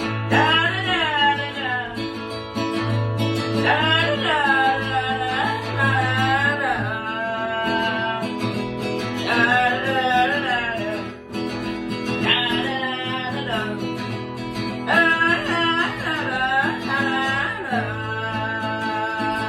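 A song sung to an acoustic guitar: a single voice holding and bending long melody notes over steady strummed chords.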